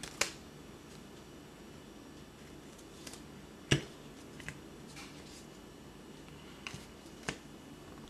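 A few scattered sharp clicks and taps over a faint steady hum, the loudest about halfway through.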